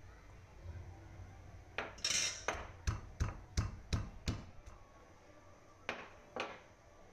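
Stone pestle pounding garlic cloves in a stone mortar, roughly crushing them: a run of about eight sharp knocks, roughly three a second, starting about two seconds in, then two more strikes a second and a half later.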